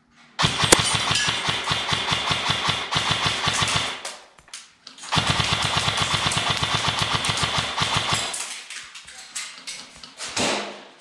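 Airsoft electric rifle (AEG) firing on full auto in two long bursts of rapid, even shots, each lasting about three seconds, with a brief pause between them.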